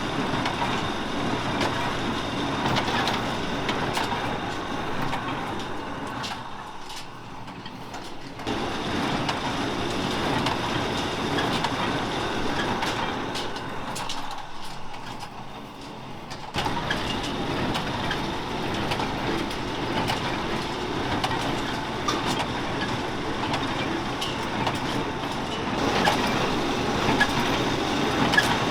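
Kubota tractor pulling an International small square baler through hay, engine and baler running steadily with a clattering, crushing mechanical noise. Twice, about seven and fifteen seconds in, it drops quieter and then comes back suddenly.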